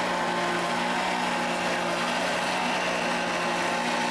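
Countertop blender motor running at a steady speed, mixing a thick cake batter, with a constant hum.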